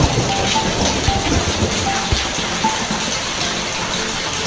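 Heavy rain pouring steadily onto a flooded pavement, a dense even hiss with scattered drop ticks.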